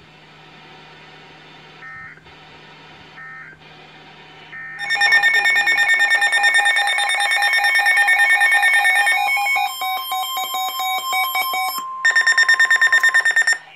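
NOAA Weather Radio alert going off between warnings. A few quieter seconds of hiss and short beeps lead into a loud, buzzy electronic alarm from the weather radio receiver. A steady warning tone sounds under it for a few seconds, and a burst of fast loud beeps comes near the end.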